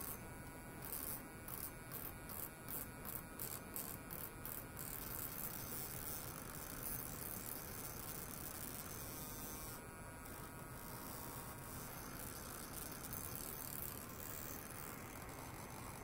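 Electric toothbrush buzzing with its head pressed against a metal pipe, pulsing about two to three times a second for the first few seconds, then running steadily.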